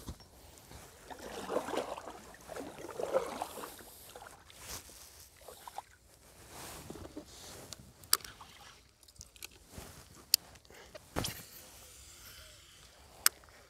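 Water sloshing and lapping against a plastic kayak hull, louder twice in the first few seconds, then a few sharp clicks and knocks from handling on the kayak.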